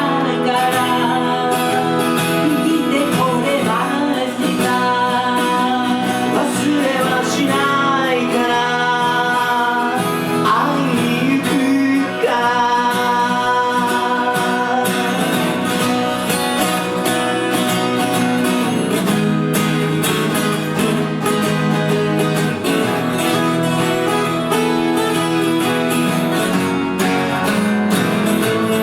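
Music: a ballad with guitar accompaniment and a melody line over it, playing continuously.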